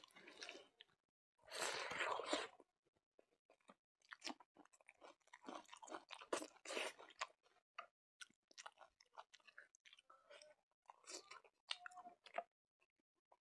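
Close-miked chewing and wet mouth clicks of a person eating smoked pork and rice by hand, in short irregular bursts, with a louder noisy stretch about two seconds in.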